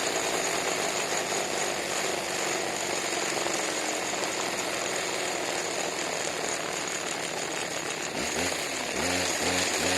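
Small two-stroke weed eater engine running fast with a steady high whine. About eight seconds in it starts revving up and down in short repeated throttle blips.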